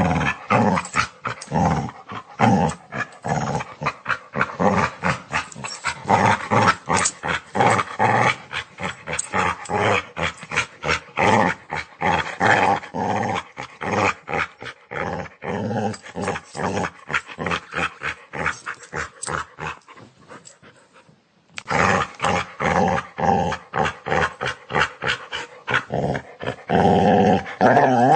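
A dog growling, a rapid pulsing rumble that runs on with only brief breaks, and a short silent gap about three-quarters of the way through before the growling starts again.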